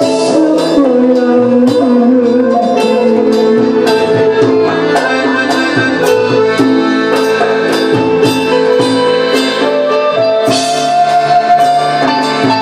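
Live Malay traditional (asli) band playing an instrumental passage of the song: an accordion carries the melody over a steady beat from hand drums and a drum kit, with strings and keyboard underneath.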